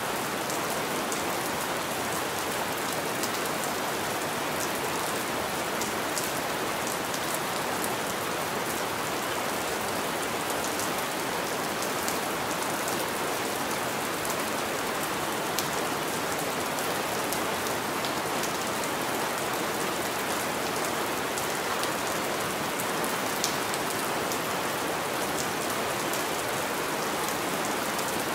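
Steady rain on a window: an even hiss of rainfall with many scattered sharp drop ticks.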